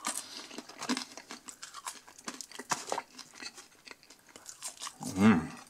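Chewing a mouthful of chips with garlic sauce: soft eating noises, with small scattered clicks and rustles from a polystyrene takeaway box being handled. A brief hum of voice comes near the end.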